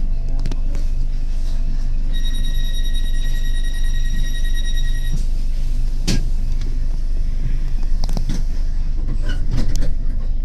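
Tyne and Wear Metro train standing at a platform with a steady electrical hum. About two seconds in, a high beeping warning tone sounds for about three seconds, the doors-closing alarm, and a single sharp knock follows a second later.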